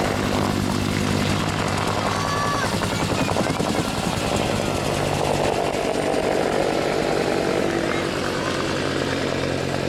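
AH-1W SuperCobra attack helicopter flying low past. Its two-bladed main rotor beats in a fast, even rhythm over the steady hum of its turbine engines.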